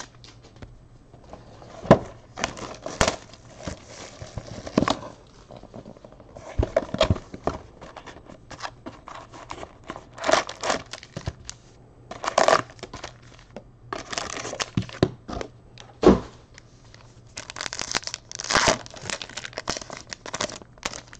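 Trading card packs being pulled from an opened box and torn open by hand: irregular crinkling and tearing of foil pack wrappers, with a few sharp knocks as the box and packs are handled.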